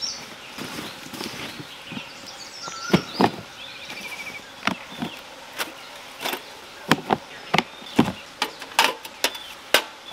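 A string of irregular sharp clicks and knocks, about a dozen, the loudest pair about three seconds in, with birds chirping and one quick trill in the background.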